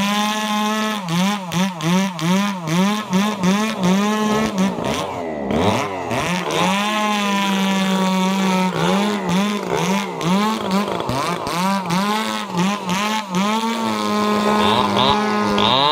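Stihl two-stroke chainsaw running at high revs while rip-cutting a log. Its pitch dips and recovers about twice a second as the chain loads in the cut. About five seconds in it drops briefly off throttle and then revs back up.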